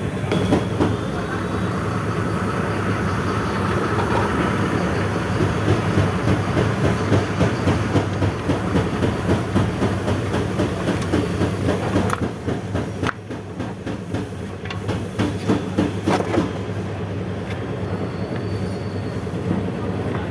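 A machine running with a steady low hum and a rhythmic clatter through the middle, with a few sharp clicks in a quieter stretch about two-thirds of the way through.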